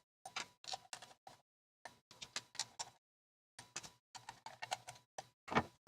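Clicks and scrapes of the ProCo DB-1 direct box's metal enclosure being handled and opened, coming in three clusters with silent gaps between, the loudest click near the end.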